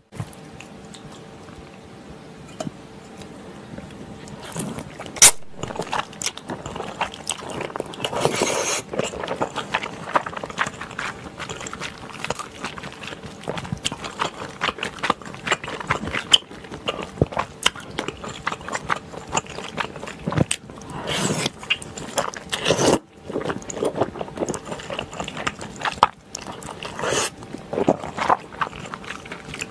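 Close-miked eating: chopsticks clicking against the pan, and wide Chinese glass noodles lifted from thick spicy sauce, slurped and chewed with wet mouth sounds.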